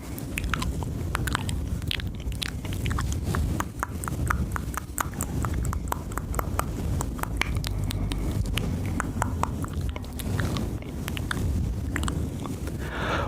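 Close-miked ASMR mouth sounds: rapid, irregular wet tongue and lip clicks, over a steady low rumble.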